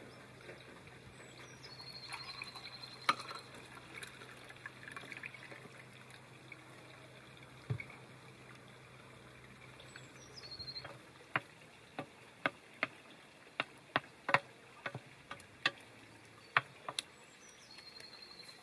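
Wooden spoon knocking and scraping against a speckled enamel pan while stirring cooked greens, with a quick run of about a dozen sharp taps in the second half. A bird repeats a short descending chirp ending in a trill three times.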